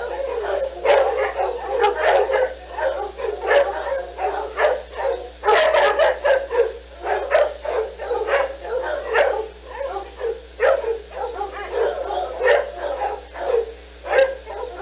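Dogs barking excitedly in rapid, repeated short barks and yips that go on without a pause.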